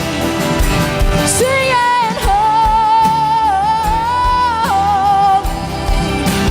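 Live worship music: a singer holding long, drawn-out notes over the band.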